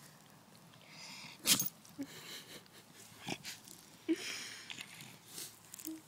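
Sleeping beagle snoring: slow, wheezy breaths about three seconds apart, each with a short low snort. A sharp click comes about a second and a half in.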